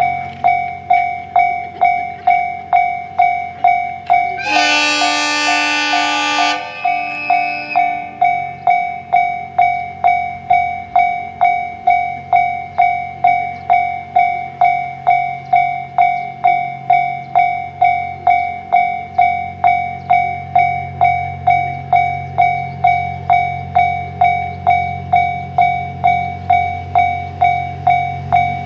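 Level-crossing alarm bell ringing steadily, about two strikes a second. A few seconds in, an approaching train sounds its horn in one blast of about two seconds. Near the end the train's low rumble grows.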